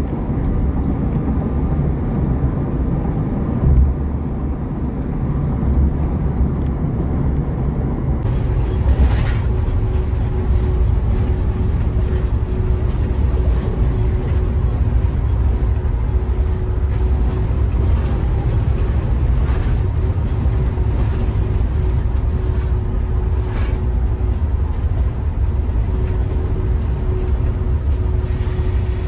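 News helicopter engine and rotor noise: a steady, loud low rumble with a faint constant hum over it.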